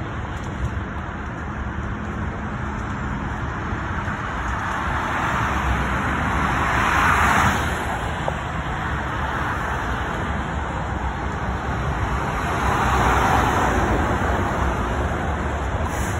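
Highway traffic noise, a steady road rumble with two vehicles passing by, one around the middle and another later on.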